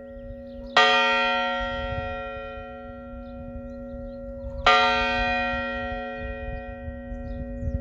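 A church bell tolling: two strokes about four seconds apart, each ringing out and slowly fading, with the bell's low hum tone sounding steadily between strokes.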